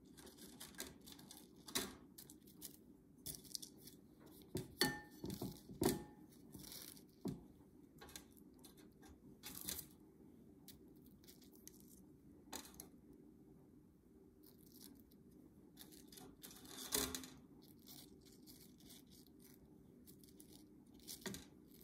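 Faint, scattered clicks and papery rustles as wooden chopsticks lift crisp tempura pieces off a stainless wire draining rack and lay them on a paper towel on a plate, the loudest rustle about three-quarters of the way through.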